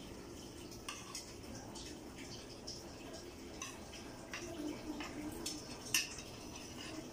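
Spoons and forks clinking and scraping on plates during a meal, in scattered light clicks with a sharper clink about six seconds in.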